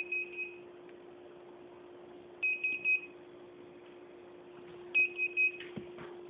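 Hitec Aurora 9 (A9) radio-control transmitter beeping: groups of three or four quick, high, same-pitched beeps that repeat about every two and a half seconds, over a faint steady hum.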